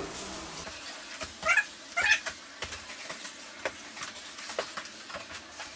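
Cat litter granules scraping and scattering under a work boot being pushed across a wooden floor, with many small clicks. Two short pitched squeals stand out about one and a half and two seconds in.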